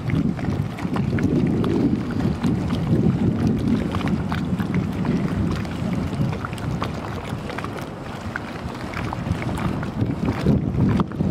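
Wind buffeting the microphone outdoors: a loud, uneven low rumble that swells and dips, with faint scattered ticks above it.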